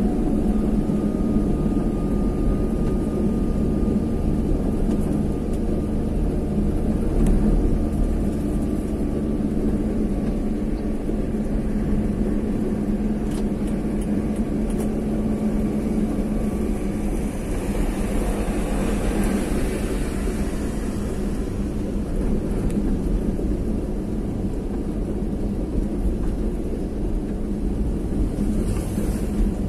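Steady engine hum and road noise of a vehicle being driven, with a hiss that swells and fades a little past the middle.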